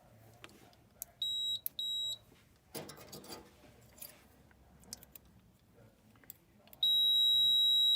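Digital multimeter's continuity beeper: two short high beeps, then a steady unbroken beep starting near the end, the meter's signal that it reads a closed circuit between its probes.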